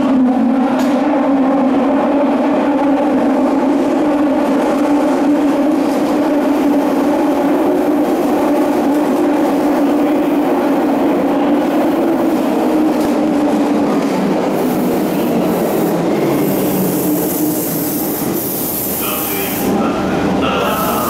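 Meitetsu Panorama Super electric train arriving in an underground station: a steady motor whine with rail noise that sinks in pitch after about twelve seconds as the train slows, followed by a high hiss of braking air.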